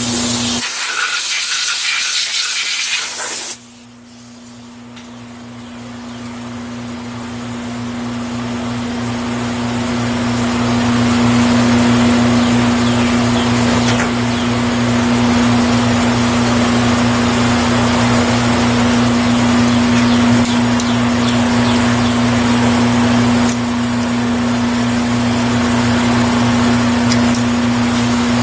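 Vertical milling machine running with a steady motor hum, its end mill cutting down the face of a Ford 460 cam timing gear on a rotary table to give clearance for a Torrington cam thrust bearing. A loud hiss in the first few seconds cuts off sharply, and the sound dips and then builds back up over the following seconds.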